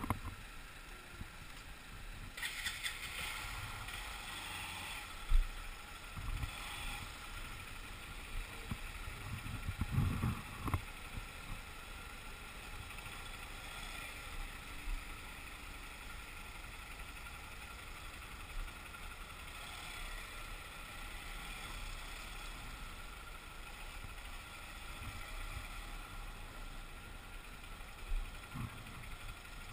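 Motorcycle riding in slow city traffic, heard from on the bike: a steady mix of engine and road noise, with a few short low thumps, the sharpest about five seconds in.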